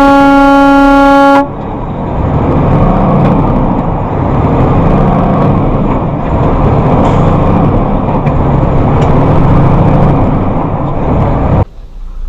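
A car horn held in one long, steady blast that cuts off about a second and a half in. Then a loud, steady rumbling road and engine noise from a moving vehicle, which stops abruptly near the end.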